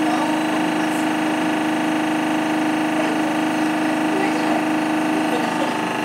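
Hoover H-Wash 300 front-loading washing machine running mid-wash with water in the drum, giving off a steady motor hum.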